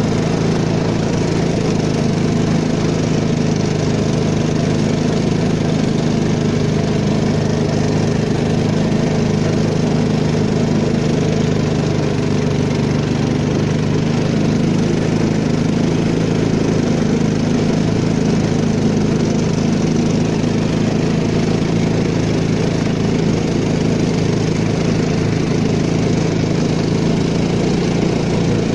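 Peque-peque long-tail boat motor, a small single-cylinder engine driving a propeller on a long shaft, running steadily at an even pitch while the boat cruises, with water rushing along the hull.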